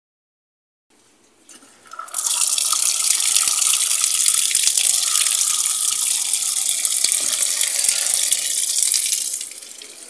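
Water pouring from the fill inlet of a Whirlpool top-load washing machine into the tub and splashing onto the laundry as it fills for the rinse. It starts about a second in, builds to a steady rush, and grows quieter near the end.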